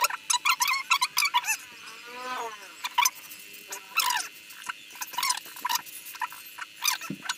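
Short, high chirps and squeaks from a small animal, coming irregularly in quick runs, some bending up and down in pitch.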